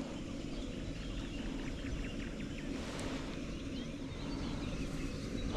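Outdoor ambience: a steady low wind rumble on the microphone with faint distant birds chirping, and a brief run of quick clicks a little over two seconds in.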